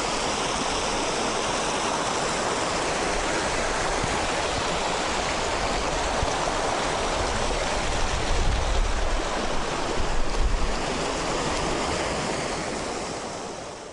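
Steady rushing of water from a mountain stream. Low gusts of wind buffet the microphone about two-thirds of the way through, and the sound fades out near the end.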